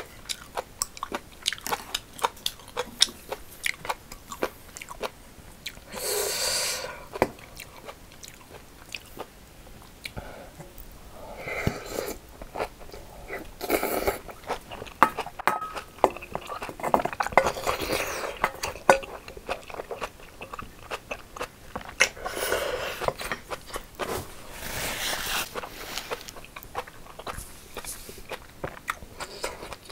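Close-miked eating: a person chewing kimchi, with many sharp wet mouth clicks and crunches. Several longer slurps of broth from a spoon are heard, the first about six seconds in and others in the middle and toward the end.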